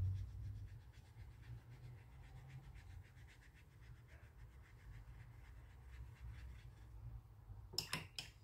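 Faint scratchy strokes of a watercolour brush on paper, over a low hum, with two or three sharp clicks near the end.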